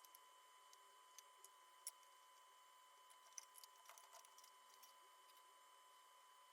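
Near silence, with a faint steady tone and a few faint, scattered clicks, most of them clustered a little past the middle.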